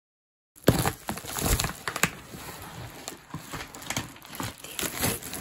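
Foil bubble mailer crinkling and crackling as hands open it and pull the box out. It starts suddenly about half a second in, after dead silence, with a sharp crackle at the start.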